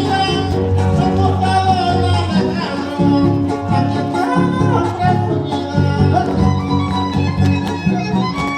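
Son huasteco (huapango) played by a huasteco trio: a violin carrying the melody over strummed jarana and huapanguera guitars.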